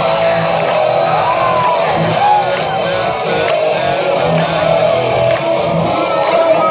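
Live rock band playing loud through the PA: electric guitars over a drum kit, with repeated cymbal strikes.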